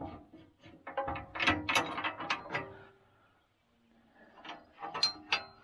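Steel box-blade scarifier teeth and their retaining pins clinking and rattling as they are repositioned by hand. The clatter comes in two bursts with a short pause in the middle, and a few metallic rings.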